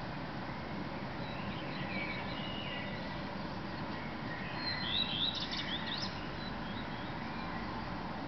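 Male common redstart singing one short song phrase of quick, high rising and falling notes about five seconds in, with fainter bird song before it, over steady low background noise.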